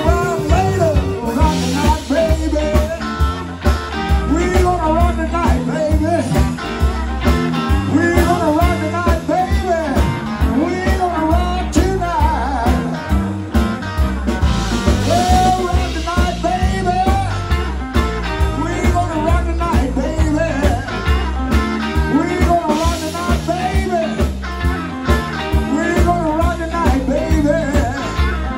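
Live blues band playing an instrumental break: electric guitar lead with bent notes over a steady bass line and rhythm guitar.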